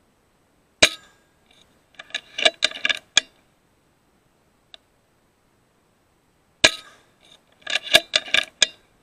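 Two shots from an FX Impact M3 .22 PCP air rifle, about six seconds apart. Each shot is followed about a second later by a quick run of metallic clinks and clatter.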